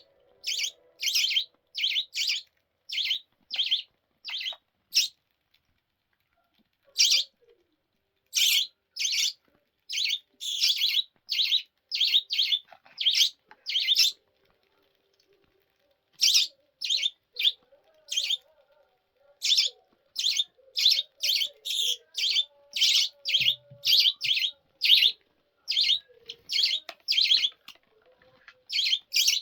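Budgerigar chirping: a long series of short, high chirps in quick runs, broken by a couple of pauses of a second or two.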